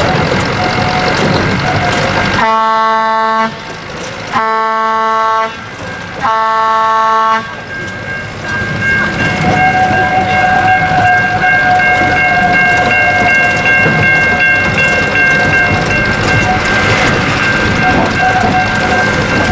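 Narrow-gauge train's locomotive horn sounded in three blasts of about a second each, the warning for the level crossing just ahead. The train then runs on steadily with a thin high tone over the running noise.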